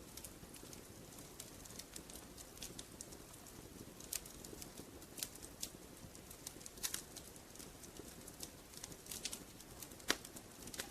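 Wood fire crackling in a fireplace: irregular sharp pops and snaps over a soft low hiss, with a louder pop about ten seconds in.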